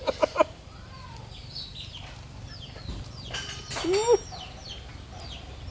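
Chickens clucking, with one louder rising cluck about four seconds in, over a run of short, high falling chirps. A few sharp clicks come right at the start.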